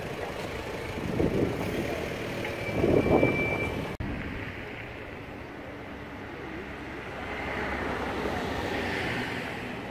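Road traffic in a busy street: vehicle engines running, with two louder passes about one and three seconds in and a brief high whine just before the sound cuts off abruptly. After the cut, a softer, steady outdoor background.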